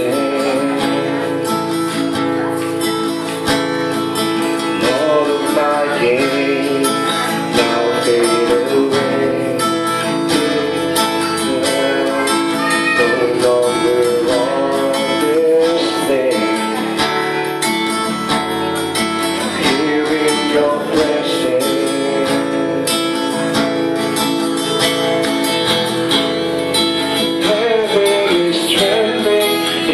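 Acoustic guitar strummed steadily as accompaniment to a man singing a slow worship song, his voice rising and falling over the chords.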